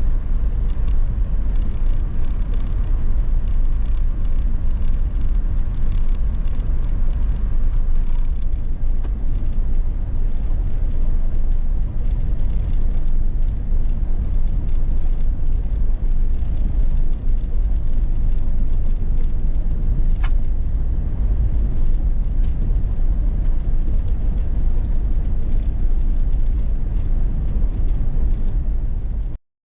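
A vehicle driving, a steady low rumble with small ticks and clicks over the first eight seconds; it cuts off suddenly near the end.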